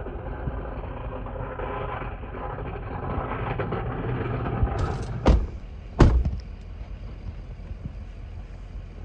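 Snowplow truck clearing the highway, a steady engine rumble and road noise that grows louder as it comes closer. Then two loud heavy thumps about a second apart.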